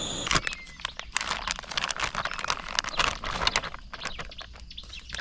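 Plastic zip-lock bag crinkling and rustling in the hand as a cooked omelette is squeezed out of it onto a plate: a dense run of irregular crackles that thins out toward the end.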